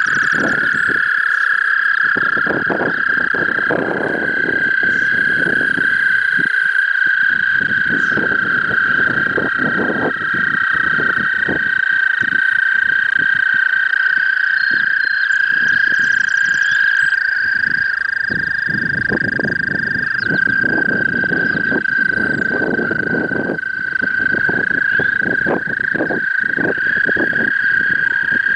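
Chorus of American toads, several long, high, steady trills overlapping at slightly different pitches, with individual trills stopping and new ones taking over. The toads call with their throat sacs blown up at a spring breeding pond. Irregular low noise rustles underneath.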